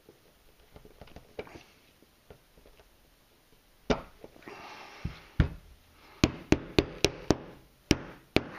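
Handling of a 1911 pistol and a small screwdriver: a few scattered sharp clicks and some softer handling noise, then a quick run of about seven sharp metallic clicks and taps in the last two seconds.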